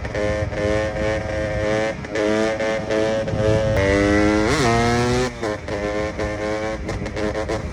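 KTM EXC 300 two-stroke enduro motorcycle engine running under throttle, briefly letting off a few times, then climbing steadily in pitch to a sharp peak just past the middle and dropping back. In the last few seconds the throttle is worked in quick short stabs.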